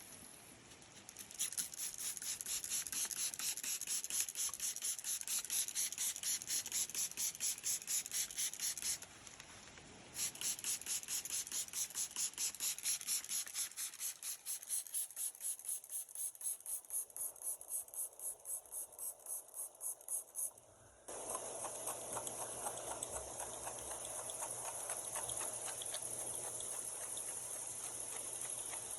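A brush scrubbing a plastic toy blaster in quick, even strokes, about two to three a second, with a short break about nine seconds in. About twenty-one seconds in the scrubbing stops and a steady hiss starts suddenly.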